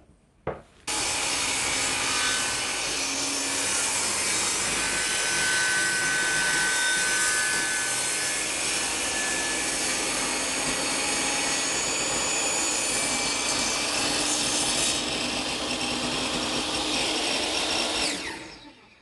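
Total 10-inch table saw (TS5152542) ripping a wide sheet of multiplex plywood: the saw comes in abruptly about a second in and cuts steadily through the board, then stops near the end and dies away over about a second.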